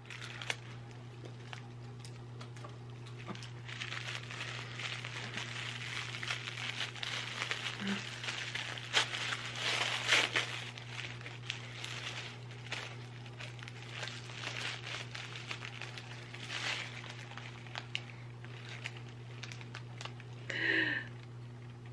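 Gift wrapping crinkling and tearing as a small advent calendar gift is unwrapped by hand, loudest around the middle, over a steady low hum.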